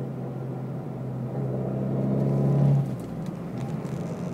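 Abarth 500's turbocharged 1.4-litre four-cylinder with a Record Monza exhaust, heard from inside the cabin, pulling under load with its drone slowly growing louder and a little higher. About three seconds in the sound drops off abruptly to a quieter, steady run, with a few faint clicks just after.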